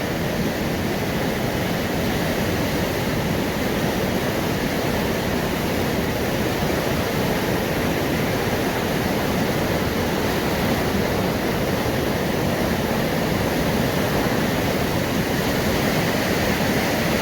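River water rushing steadily past the mill, an even, unbroken rush.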